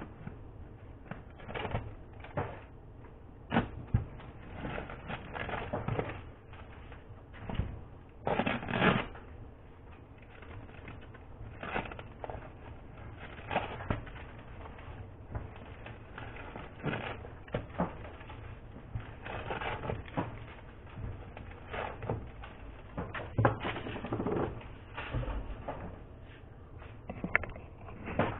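Chocolates being wrapped by hand: irregular rustling and crinkling of foil wrappers, mixed with light taps and knocks on the work surface.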